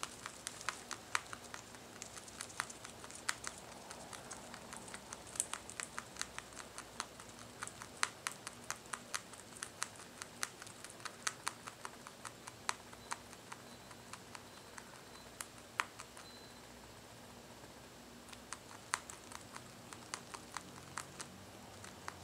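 Rabbit chewing hay: quick, crisp crunching clicks several times a second, pausing for about two seconds past the middle and then starting again.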